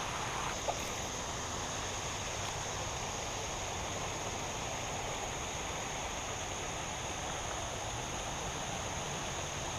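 Steady rush of water pouring over a small creek fall below a spillway, with a steady high-pitched insect drone over it.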